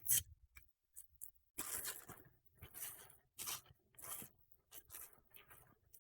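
A package being torn open by hand: a series of irregular tearing and crinkling rustles of packaging.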